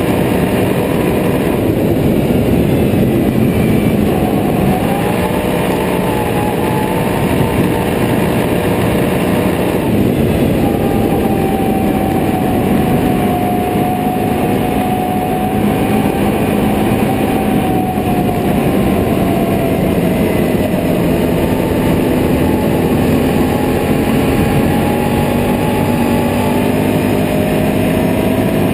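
Can-Am Renegade 800R ATV's V-twin engine running under way, its pitch drifting up and down with speed, with a short dip about ten seconds in, over a steady rush of wind and road noise.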